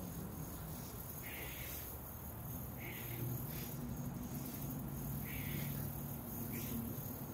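Insects chirring steadily in the woods, with short noisy sounds recurring every one to two seconds.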